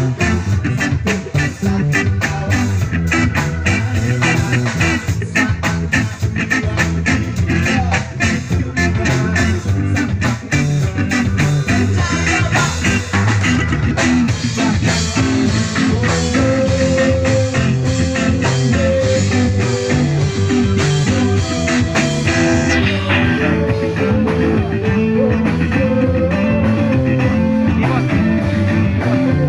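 Live band playing amplified music with drum kit, electric guitars, bass and keyboard. Fast, busy cymbal and drum strokes fill roughly the first half, and held melody notes come forward in the second half.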